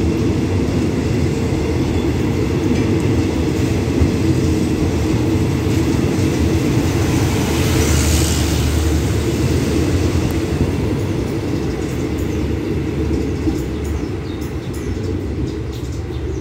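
Passenger carriages of an express train rolling past at close range, a steady wheels-on-rails rumble with a brief hiss about halfway through. The rumble fades over the last few seconds as the train pulls away.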